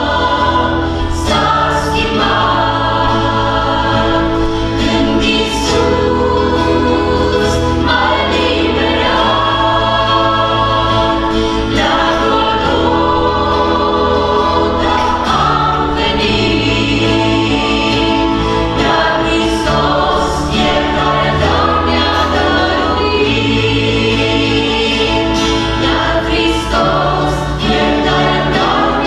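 Mixed group of voices singing a gospel worship song together, backed by electric bass guitar, acoustic guitar and keyboard. The bass holds long notes that change every second or two.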